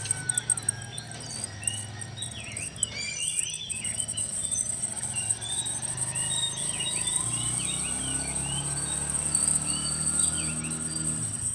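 Insects buzzing steadily at a high pitch, with birds chirping over it in many short calls, above a low steady hum.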